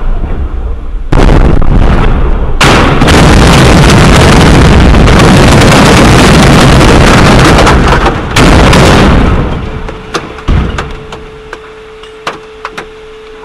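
Cluster-bomb submunitions exploding close by, loud enough to overload the microphone. A blast comes about a second in, then a dense run of overlapping blasts for about five seconds and one more burst just after. As it dies away, a faint steady tone comes in and a few sharp pops follow near the end.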